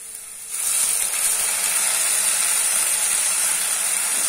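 Ginger-garlic paste dropped into hot oil and fried onions in a stainless steel kadai, sizzling loudly. The sizzle starts abruptly about half a second in and carries on steadily.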